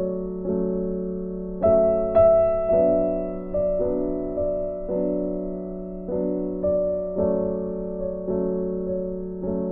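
Background piano music: a slow, gentle melody of single notes and chords, a new note struck about every half second and left to ring.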